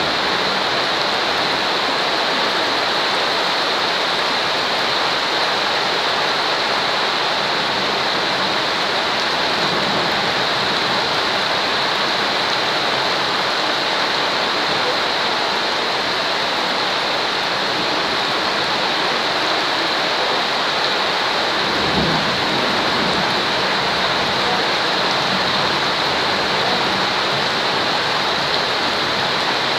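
Steady, even rain falling, a constant hiss of rainfall. About two-thirds of the way through there is one brief low thump.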